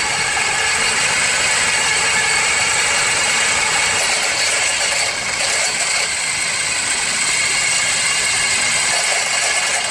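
Car engine idling, heard up close at the alternator: a steady mechanical whir with a rattle from the alternator, which is failing and not charging the battery.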